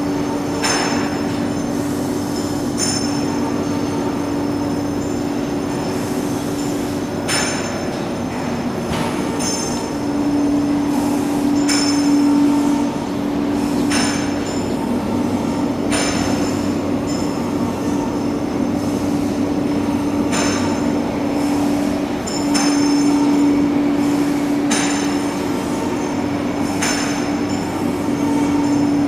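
Twin-line steel tube drawbench running: a steady machine hum that swells and fades in stretches, with sharp metallic clanks that ring out every few seconds.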